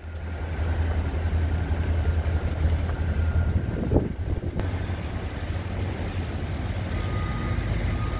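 Freight train rolling past, a steady low rumble from the moving cars. About four seconds in there is a short knock, after which the rumble goes on steadier and softer, with faint thin tones near the end.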